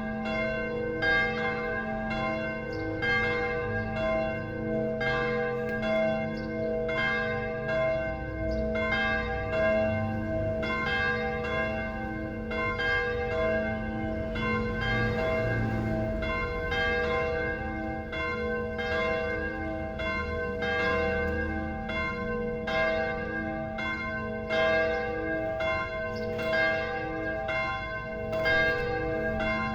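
Church bells ringing, struck in a steady run about once a second, each stroke ringing on into the next.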